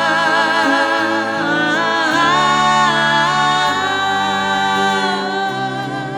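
Three women singing a slow soul ballad in close harmony, drawing one word out over several held notes with vibrato.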